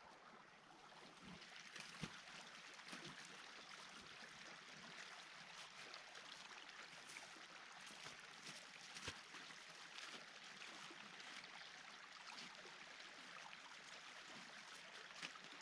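Near silence: a faint steady outdoor hiss with a few soft scattered clicks.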